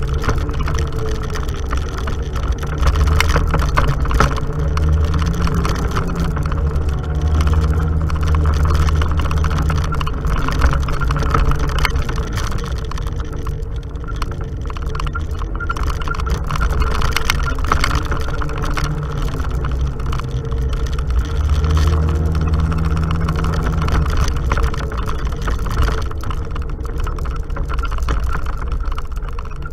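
Off-road vehicle engine running under load on a bumpy dirt trail, its pitch rising and falling with the throttle, with frequent knocks and rattles from the ride.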